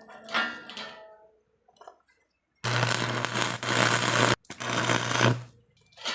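Electric arc welding on steel rebar: a steady crackling hiss over a low buzz, in two runs of about one and a half seconds and one second with a brief break between.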